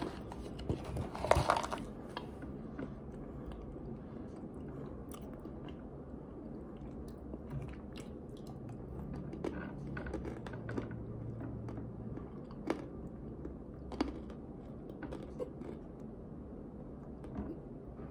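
Mouth chewing starch, with scattered soft crunches and clicks. There is a louder burst of noise in the first two seconds.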